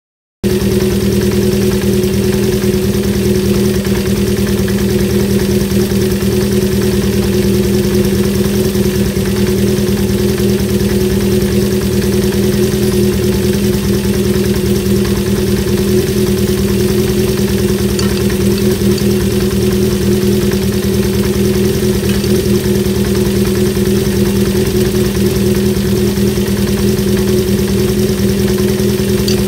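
Honda CB350 Four's air-cooled inline-four engine idling steadily, its mechanical noise heard as a check on cam chain tension. The sound cuts in suddenly about half a second in.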